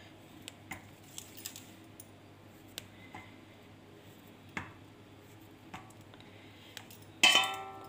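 Faint, scattered light clicks and taps of fingers and soft bread dough against a stainless steel bowl as the dough is pinched into small pieces. Near the end, a short, louder voiced sound.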